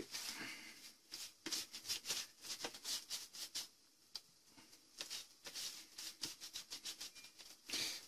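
Silicone pastry brush spreading oil over a dry, uncooked papadum: quiet, short brushing and scraping strokes, a few a second and unevenly spaced.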